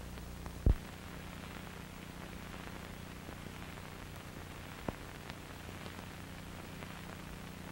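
Steady hiss and low electrical hum from old videotape playback. A loud low pop comes about a second in, and a smaller click about five seconds in.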